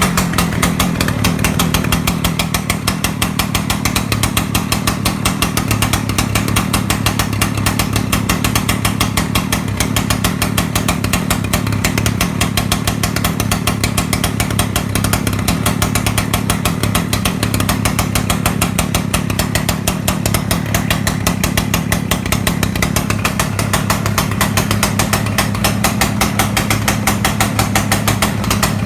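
Petrol engine of a Husqvarna concrete cutting saw running steadily, with an even, rapid firing beat and no change in speed.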